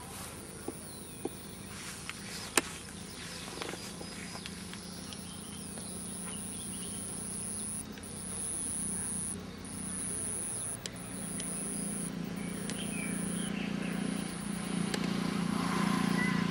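Outdoor field ambience: an insect shrilling high and thin, in on-off stretches about a second long from midway on, over a low engine hum that grows louder toward the end. A few sharp clicks sound in the first few seconds.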